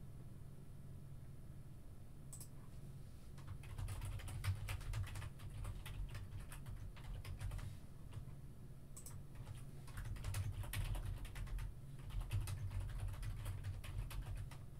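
Typing on a computer keyboard: irregular runs of quick key clicks that start a few seconds in, over a steady low hum.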